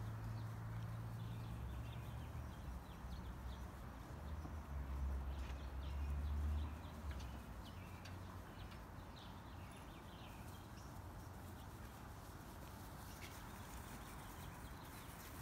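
Faint outdoor background: a low rumble of wind or handling on the phone's microphone for roughly the first half, then a steady faint hiss, with scattered short, faint high chirps.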